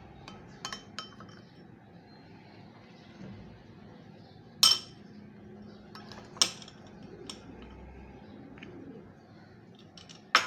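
A metal spoon clinking against a glass bowl while scooping dry spice masala. There are a few light clinks in the first second, two sharp loud clinks about two seconds apart in the middle, and one more near the end.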